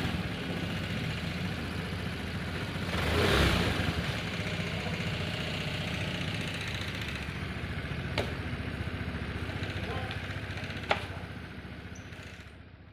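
Honda Vario 110 scooter's single-cylinder engine idling steadily after a rebuild with a new piston, connecting rod and crank bearings, following a seizure from oil starvation. It revs up briefly about three seconds in. Two sharp clicks come later, and the sound fades out at the end.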